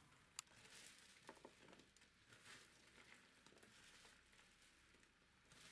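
Faint rustling and crinkling of shredded cabbage, grated carrot, sliced pepper and onion being tossed and mixed by hand on a tabletop, with a light click about half a second in.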